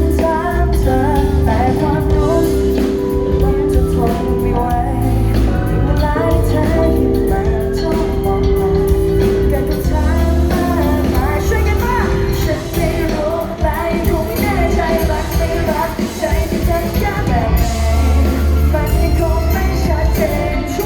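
Live pop-rock band playing with a female lead vocal singing over held instrument notes and a heavy bass.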